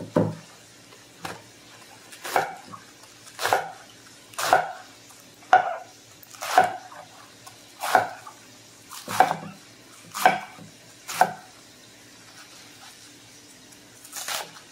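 Chef's knife slicing through a raw head of green cabbage onto a wooden cutting board: about eleven short cuts roughly a second apart, then a pause of a few seconds and one more cut near the end.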